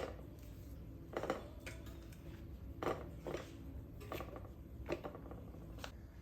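Dishes and utensils being handled: about seven light clinks and knocks, roughly one a second.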